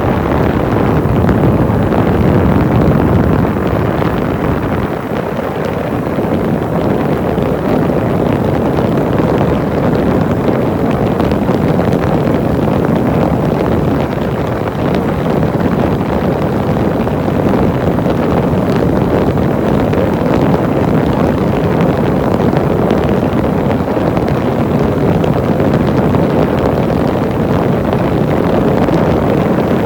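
Steady rush of wind on the microphone mixed with the road and engine noise of a vehicle driving through a road tunnel.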